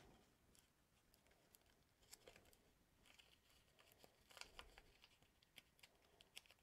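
Near silence, with faint scattered scratches and ticks of fingernails picking at the stuck backing of a strip of adhesive tape.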